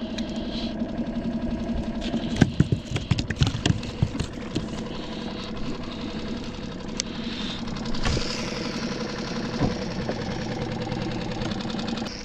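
Small boat's outboard motor idling steadily, with a run of sharp knocks and clatter about two to five seconds in.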